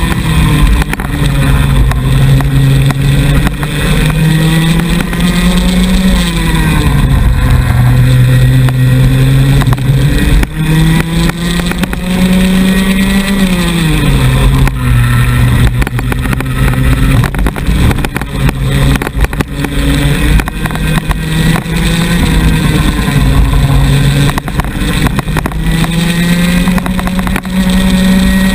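Two-stroke kart engine heard onboard at racing speed. Its pitch climbs steadily along the straights and drops sharply when the kart slows into corners, about four times, with heavy wind buffeting on the microphone.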